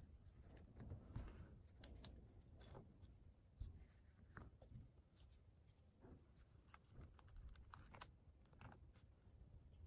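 Faint, irregular clicks and taps of plastic speedcube pieces (a GAN 356 XS magnetic cube) being picked up, fitted against one another and set down on a desk mat.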